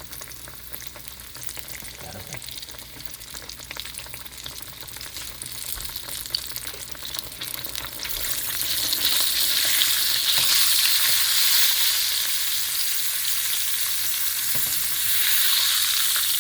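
Breaded oyster mushrooms frying in hot oil: a steady sizzle with small pops, which gets clearly louder about halfway through.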